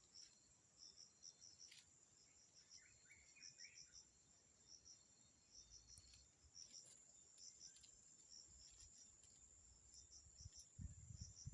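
Faint insect chorus: a steady high-pitched whine with repeated short chirps in groups of three or four, with a few low thumps near the end.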